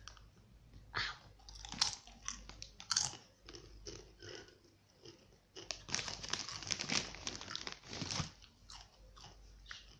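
A person crunching and chewing spicy rolled corn chips, Takis-style rolls, with a run of dense crunching from about six to eight seconds in.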